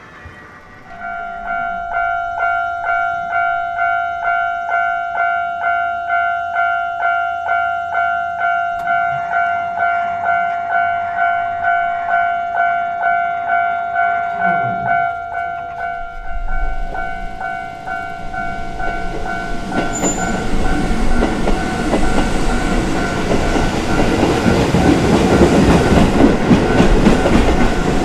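Japanese level-crossing warning bell starts about a second in, a repeating two-tone electronic clang at about two strikes a second. From about 16 s in, a train's running noise builds and is loudest near the end while the bell keeps ringing.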